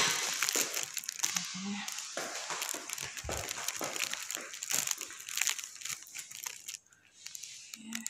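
Irregular crinkling and crackling rustle right at the microphone: handling noise from a hand-held phone being moved about. A brief low voice sound comes about two seconds in.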